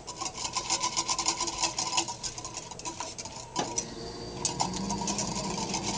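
Wire whisk stirring grated soap into hot water in a glass measuring jug, its wires clicking rapidly against the glass, with one sharper knock about halfway through. This is the stirring that dissolves the soap flakes when making liquid soap.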